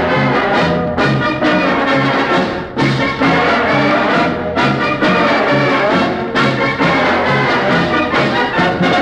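Band playing a march, brass to the fore over a steady beat in the bass.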